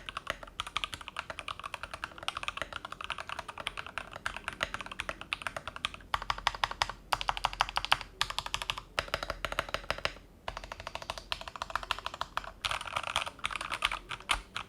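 Typing test on a modded Rexus Daiva D68 mechanical keyboard with lubed JWK Ultimate Black Smoky switches, NP PBT Crayon keycaps, tuned stabilizers and EVA foam case dampening: a fast, dense run of key clacks with a brief pause about two-thirds through.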